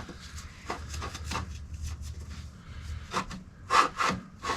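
Garage door opener parts being turned and handled by hand: rubbing and scraping with scattered clicks and knocks, a few louder knocks in the second half.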